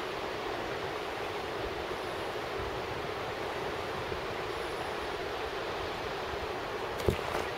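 Steady rushing of a river running over shallow rapids, with one sharp knock near the end.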